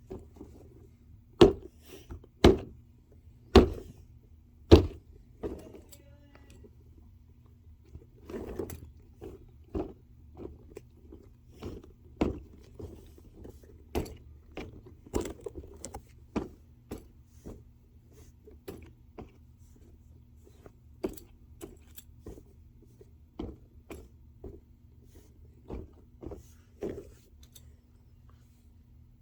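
Objects being handled: irregular clicks and knocks, four loud ones in the first five seconds, then many lighter ones, over a steady low hum.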